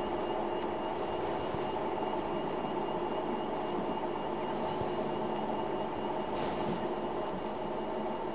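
Game-drive vehicle's engine running steadily, a constant hum with several even tones and no change in pitch.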